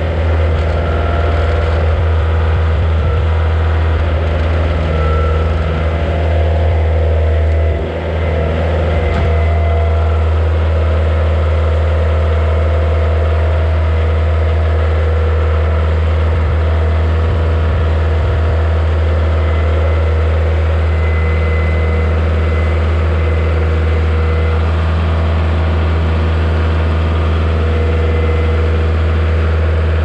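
Kioti DK40se HST tractor's diesel engine running steadily under way with its log grapple, with a brief dip in level about eight seconds in.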